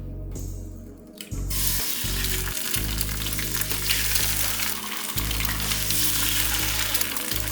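Breakfast food sizzling in a frying pan, the hissing setting in loudly about a second and a half in, over background music with a deep bass line.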